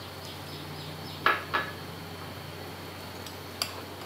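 Two light clinks of kitchenware against a glass bowl, a little over a second in, the second softer, with a faint tick near the end, over a low steady hum.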